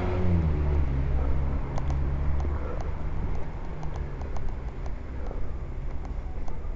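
Freezing rain ticking lightly and irregularly on an umbrella. A passing car's engine, its tone falling, fades out over the first two seconds or so.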